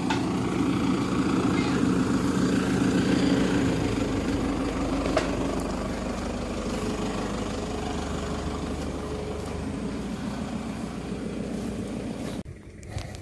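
An engine running steadily, with a low, even hum that stops abruptly near the end.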